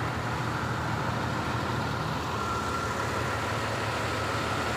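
Heavy diesel engine idling steadily, with a thin steady whine joining in about halfway.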